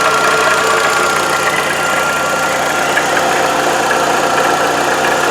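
Volkswagen EA111 1.6 8-valve engine idling steadily, with a steady high tone over the running. The noise comes from the belt-driven front of the engine and is suspected to be the water pump or the belt tensioner.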